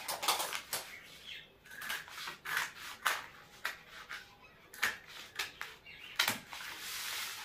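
Scissors cutting through layers of cloth in a series of short, irregularly spaced snips, with the fabric rustling as it is held and handled.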